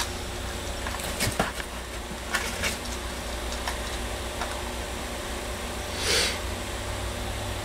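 Small clicks and rattles of a clear plastic tackle box as a hand picks through lures and hooks in its compartments, with a brief rustle about six seconds in, over a steady low hum.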